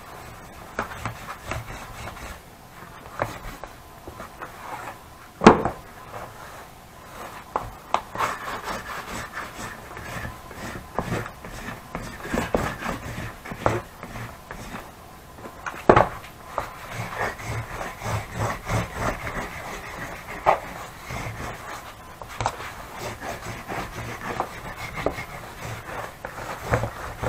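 Hands rubbing and smoothing leather saddle-flap pieces flat against a wooden workbench as the lining is pressed on, with scattered knocks of leather and hands on the bench, two of them sharp and loud, about five seconds in and again around sixteen seconds in.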